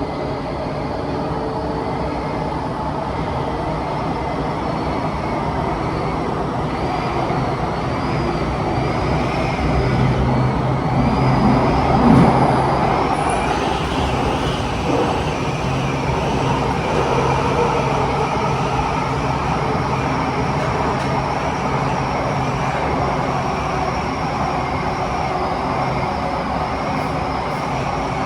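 Kawasaki-CRRC Qingdao Sifang T251 metro train running at speed through a tunnel, heard from inside the carriage: a loud, steady rumble and rush of wind noise, with a thin, wavering high whine over it. The noise swells briefly about twelve seconds in.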